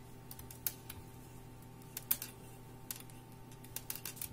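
3 mm knitting needles clicking irregularly as purl stitches are knitted quickly, over a steady low hum.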